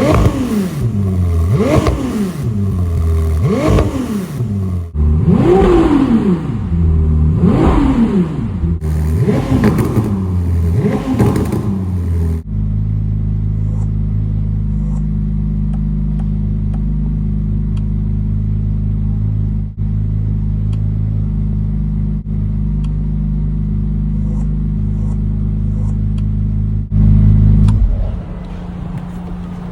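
Ferrari 296 GTB's twin-turbo V6 revved about six times in quick succession, each rev rising and falling over roughly two seconds, then settling into a steady idle. Near the end there is a short louder burst before the engine note drops quieter.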